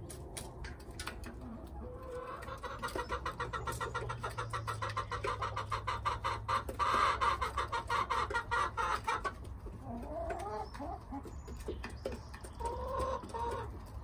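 Domestic hens clucking: a long run of quick repeated clucks from about two seconds in to about nine seconds in, loudest around the middle, then a few shorter calls near the end. These are the soft, happy sounds of contented hens at their feed.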